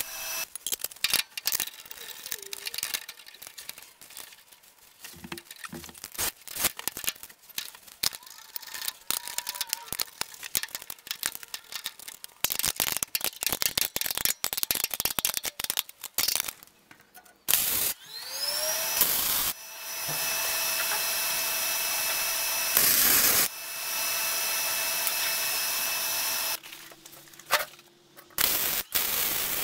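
MIG welder crackling in short, irregular bursts as it tacks and welds 16-gauge exhaust header tubing. Partway through, a power tool spins up with a rising whine and runs steadily for several seconds.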